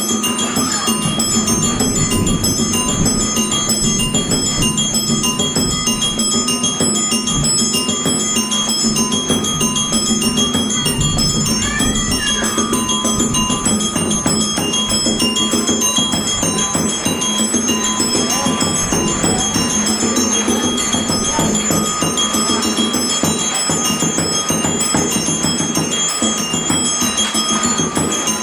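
Background music of bell-like mallet percussion, a light repeating tune.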